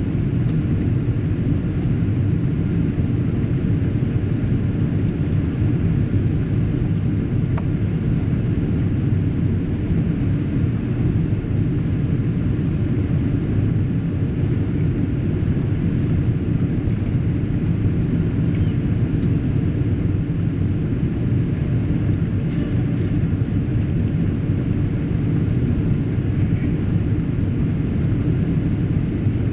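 Cabin noise of a Boeing 777-200ER airliner on approach, heard from a window seat over the wing: a steady low rumble of engines and rushing air.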